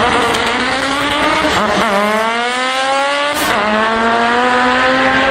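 A performance car's engine accelerating hard through the gears, its pitch climbing steadily with two quick upshifts, about two seconds and three and a half seconds in. A short sharp burst of sound comes at the second shift.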